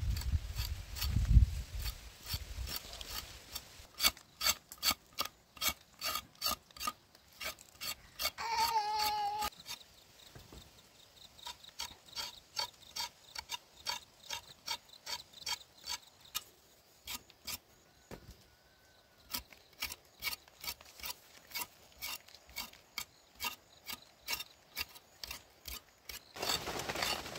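A large knife scraping and chopping the skin off raw cassava roots: a steady run of short, sharp strokes, about two a second, with a couple of short pauses.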